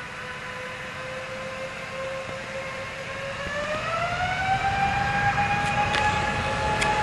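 Airbus A350-1000's Rolls-Royce Trent XWB jet engines on the runway: a steady whine that rises in pitch about three to four seconds in and then holds, while the low rumble grows louder as thrust increases.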